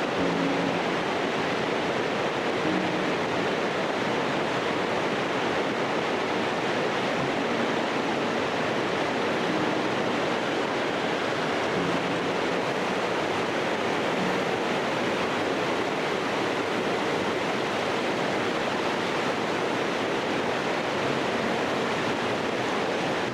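Mountain stream rushing steadily over its bed.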